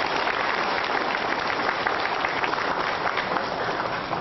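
Audience applauding: many hands clapping in a dense, steady patter that dies down near the end.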